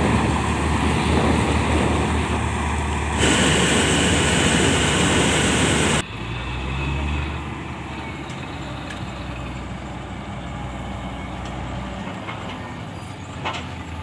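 Wheat combine harvester running close by while cutting the crop: its engine and header mechanism make loud, dense machine noise that gets brighter about three seconds in. About six seconds in it drops suddenly to a quieter, more distant steady engine hum.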